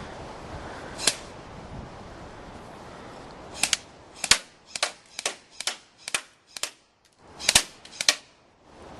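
Airsoft rifles firing single shots: one sharp pop about a second in, then a run of about nine pops roughly half a second apart over the second half.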